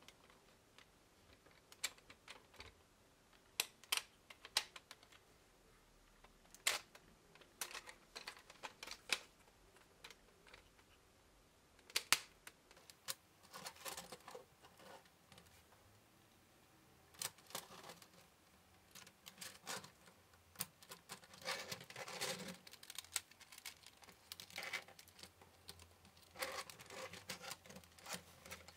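Plastic Lego Technic parts being handled and fitted together: irregular clicks, snaps and rattles, a few sharp single clicks at first, then busier clattering through the second half.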